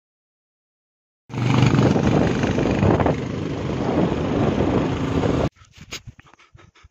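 Motorcycle engine running on the road with wind noise on the microphone, starting abruptly a little over a second in. It cuts off suddenly about four seconds later, leaving faint scattered crunches and clicks.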